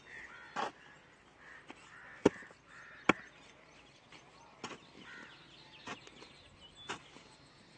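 A long-handled hoe striking and scraping into a heap of sand, about seven sharp strokes roughly a second apart. Birds chirp faintly between the strokes.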